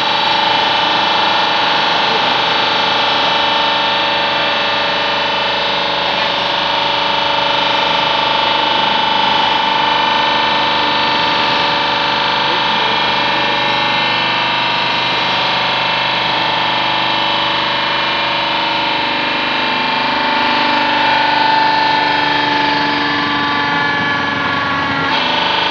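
Background music: steady, distorted electric-guitar sound with effects, holding dense sustained tones that shift near the end.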